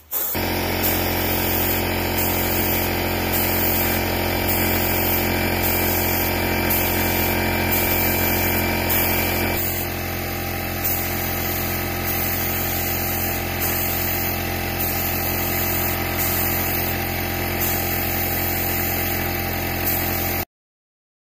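Air compressor running steadily, feeding an air-powered paint spray gun whose hiss comes and goes with the spray strokes. It stops suddenly near the end.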